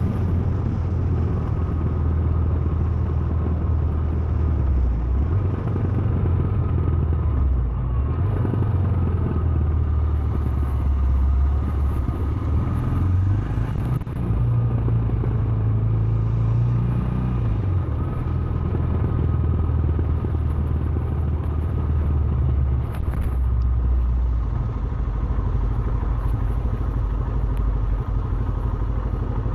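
2017 Royal Enfield Himalayan's 411 cc single-cylinder engine running on the move, its low note shifting up and down several times.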